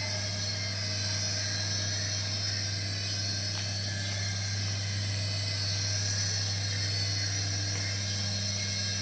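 Small electric motor of an RC toy running steadily with a high whine over a low hum, and one faint click about three and a half seconds in.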